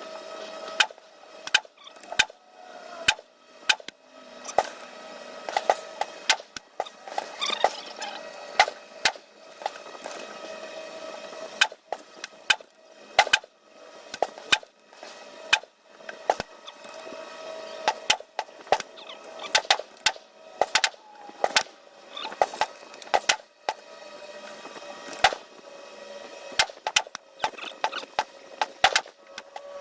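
.22 LR rimfire gunshots on a shooting range: many sharp cracks at irregular intervals, sometimes two or three a second, over a steady faint hum.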